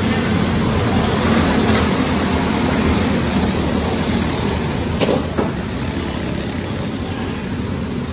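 A pack of racing go-kart engines running hard as the karts pass by, echoing in a large indoor arena. Two sharp knocks come about five seconds in.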